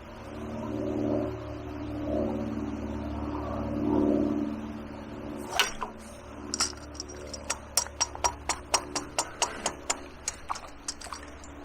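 A steady engine hum that swells and fades over the first few seconds, then a run of sharp clicks, roughly three a second, for the rest of the time.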